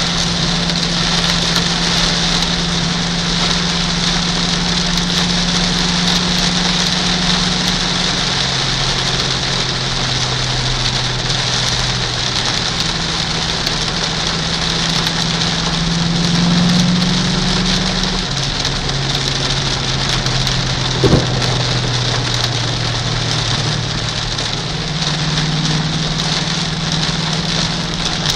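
Heavy rain hitting a moving car, heard from inside the cabin, over the steady drone of the Ford Mustang Bullitt's V8, whose pitch steps up and down a few times. A single sharp knock about three-quarters of the way through.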